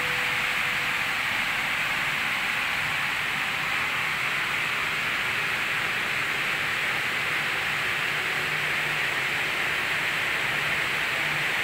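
Steady, even hiss with no separate sounds standing out.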